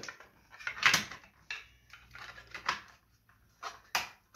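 A handful of sharp clicks and knocks, the loudest about a second in, as cables are pushed in and the cable clips are worked on the arm of a swing-arm TV wall bracket.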